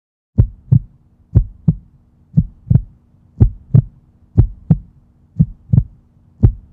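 Heartbeat sound effect: paired low thumps in a steady lub-dub rhythm, about one double beat a second, over a faint low hum.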